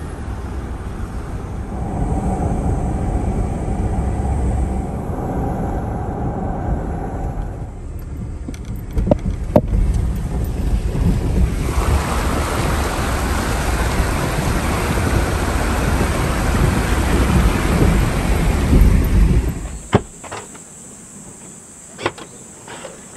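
Inside the cabin of a Land Rover Discovery 4: steady road rumble while driving, then a loud rushing splash of water under the tyres as it fords a shallow stony stream. The sound cuts off suddenly near the end, followed by a few sharp clicks of the tailgate handle being worked.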